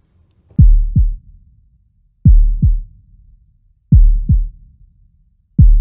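Heartbeat sound effect: slow, deep double thumps (lub-dub), about one pair every second and a half.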